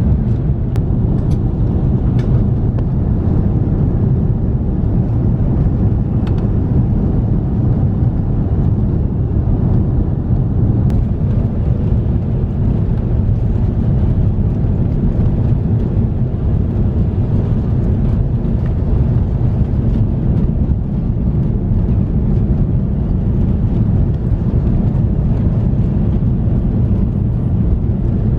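Steady cabin noise of an Airbus A330-300 airliner: an even, loud rumble of engines and airflow, heaviest in the low range, with no change in level.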